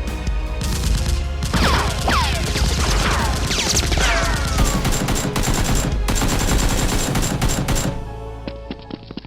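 Rapid automatic gunfire sound effects over background music, with several falling whistling tones in the first half. The firing breaks off about eight seconds in, leaving a few single shots.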